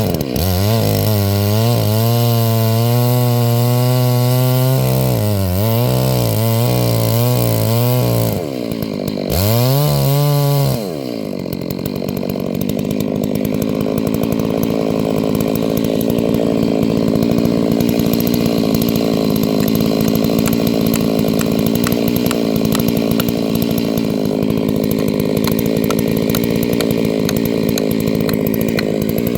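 Chainsaw engine running hard and revving up and down while it cuts through a bald cypress trunk. After about ten seconds it briefly dips, revs once more, then runs steadily.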